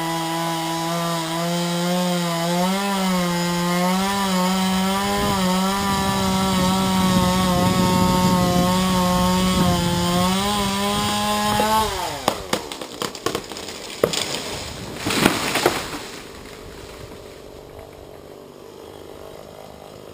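Chainsaw engine running at high revs and cutting through wood, the revs wavering under load. About twelve seconds in the engine drops off, and it is followed by a series of cracks and a crashing burst as the lopped tree comes down.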